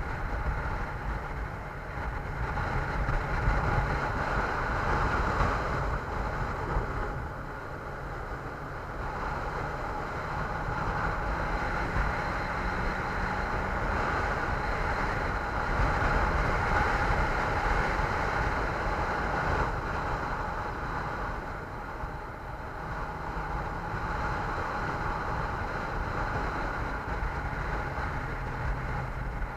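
Motorcycle engine running under way, its pitch stepping up and down with changes in speed, under steady wind rushing over the microphone.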